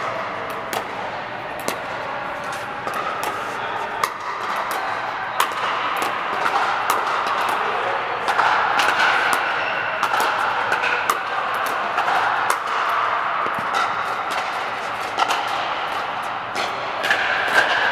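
Pickleball paddles hitting the hard plastic ball: sharp pops at irregular intervals from this and neighbouring courts, echoing in a large air-supported dome, over a steady wash of distant chatter.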